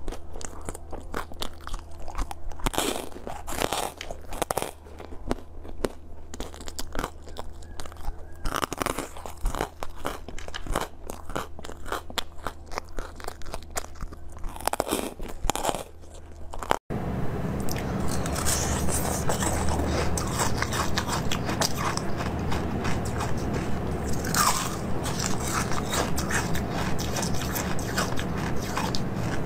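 Close-up crunching and biting of small hard frozen sweets, many sharp crunches in quick succession. About 17 seconds in it cuts abruptly to denser, wetter chewing of green jelly over a steady low hum.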